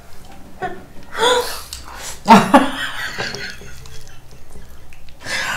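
A person's short wordless vocal sounds, with two main bursts about one and two and a half seconds in.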